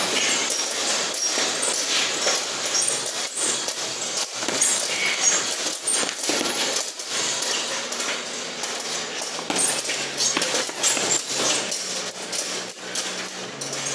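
Punches landing on a hanging heavy punching bag in a rapid, irregular series of hits, with light metallic jingling on top.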